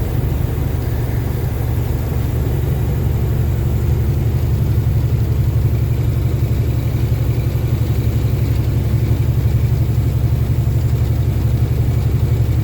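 Detroit Diesel Series 60 14-litre straight-six diesel of a loaded semi truck running under way, heard from inside the cab as a steady low drone that grows a little louder over the first few seconds.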